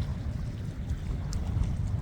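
Wind buffeting a phone's microphone, a low uneven rumble, over the sound of the sea.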